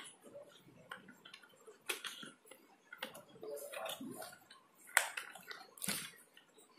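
Yellow plastic toy cups being handled and worked out of a cardboard box insert: several sharp clicks and taps, the loudest about five seconds in, with light rustling between.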